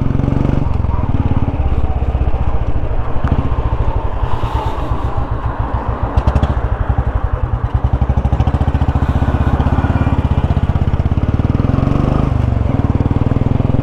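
Motorcycle engine running as the bike pulls away and rides along the road, its pulse dipping briefly about halfway through.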